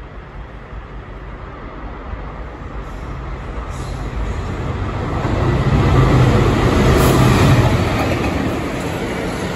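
A convoy of diesel locomotives led by a GBRF Class 66, its EMD two-stroke V12 engine running, approaching and passing at speed. A steady low engine drone and the rush of wheels on track grow louder, are loudest about six to eight seconds in as the lead locomotive goes by, then ease slightly as the following locomotives pass.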